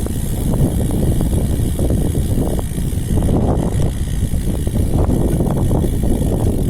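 Strong wind buffeting the microphone of a cyclist riding a road bike, a loud, steady low rumble with gusty flutter.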